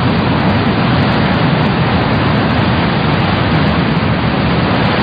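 Ocean surf breaking on a rocky shore: a loud, steady rushing wash of waves.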